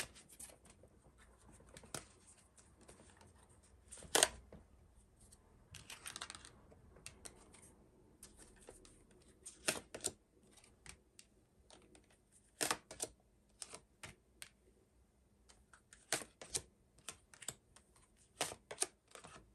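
Tarot cards being drawn from the deck and laid down on a cloth-covered table: scattered light clicks and taps, the sharpest about four seconds in, with a brief rustle of a card sliding about six seconds in.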